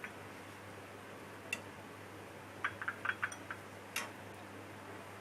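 Light clicks and taps of a utensil against a serving dish: one about a second and a half in, a quick cluster of several taps around the middle, and a sharper click near the end, over a steady low hum.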